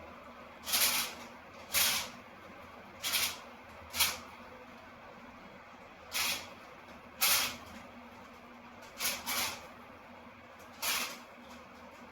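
Paper being ripped by a starling: about nine short tearing rips at irregular intervals, two of them in quick succession about nine seconds in.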